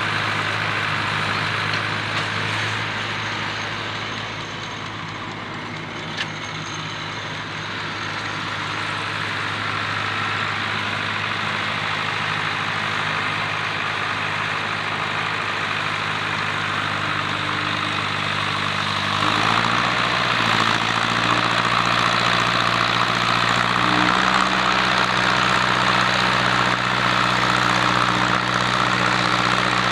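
Zetor Crystal 8011 tractor's four-cylinder diesel engine running steadily. About two-thirds of the way through its note shifts and it gets louder, then steps up again a few seconds later.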